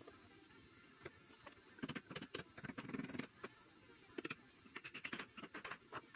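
Small hammer tapping lightly on a walnut drawer box, quick taps and knocks in two bursts, with wood knocking on wood as the box is handled.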